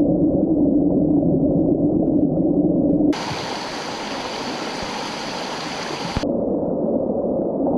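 Rushing mountain-stream water, heard muffled and low, then as a clear, full rushing hiss for about three seconds from around three seconds in, then muffled again.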